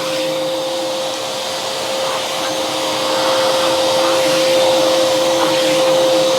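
Wet-and-dry drum vacuum cleaner running steadily with a constant motor whine while its wet nozzle sucks spilled water off a floor mat.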